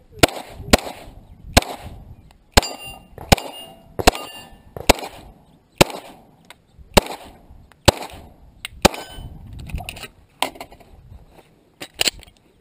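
A string of about a dozen semi-automatic pistol shots, roughly one a second, with steel plate targets ringing as they are hit.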